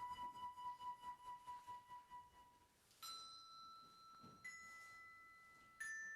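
A flute holding one wavering note that fades out about three seconds in, then three struck chime tones about a second and a half apart, each ringing on. Soft instrumental music.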